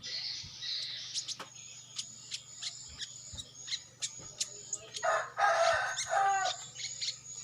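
A rooster crows once, about five seconds in, a call lasting about a second and a half, amid repeated short high chirps.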